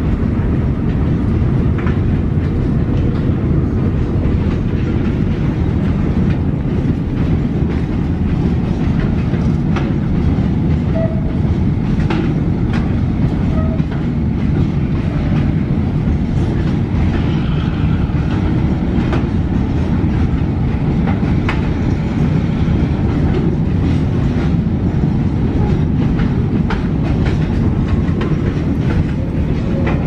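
Long train of quarry hopper wagons rolling past close by: a steady, heavy rumble from the wheels on the rails, with scattered sharp clicks.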